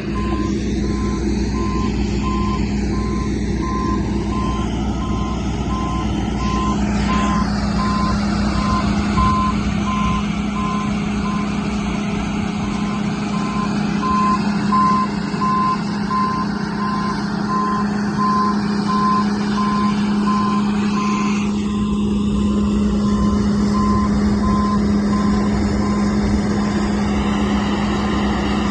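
Backup alarm on heavy farm machinery beeping steadily and evenly while the machine's engine runs with a constant drone, a sign that the machine is reversing.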